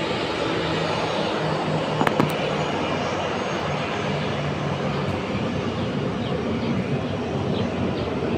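Boeing 737-800's CFM56-7B turbofan engines running at low taxi thrust: a steady jet hiss and rumble as the airliner rolls past close by. Two sharp clicks about two seconds in.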